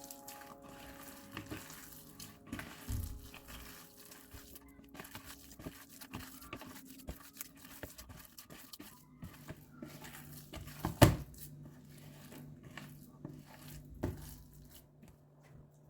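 Rustling, crinkling and light clinks of hands working with kitchen things, with a sharp knock about eleven seconds in and a smaller one near fourteen seconds.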